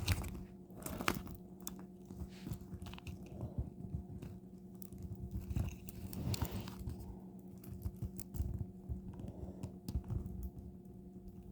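Irregular rustling, crinkling and clicking as a diamond painting canvas is handled and measured, over a steady low electrical hum.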